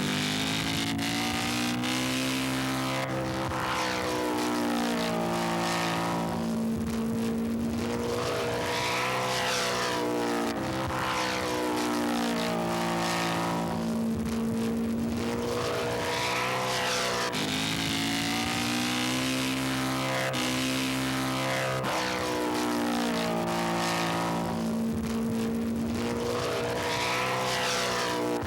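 Model airplane engines running in flight, their pitch rising and falling over and over as they pass.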